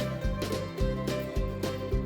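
Upbeat background music with a steady beat and plucked notes.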